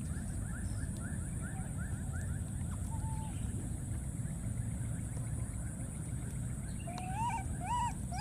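A baby monkey whimpering near the end: short cries that rise and fall, about two a second. Before that, faint quick chirping, about three a second, over a steady low rumble.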